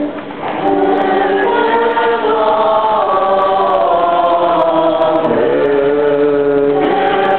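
Many voices of an Orthodox church choir and congregation singing a Paschal hymn together in sustained chanted phrases, without instruments. The singing breaks off briefly at the start and comes back within about half a second, and a new phrase begins a little after five seconds.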